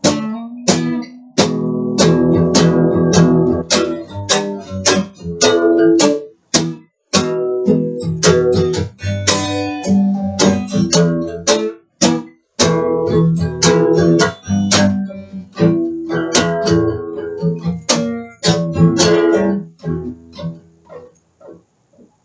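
Guitar being strummed in chords, the strumming thinning out and stopping near the end.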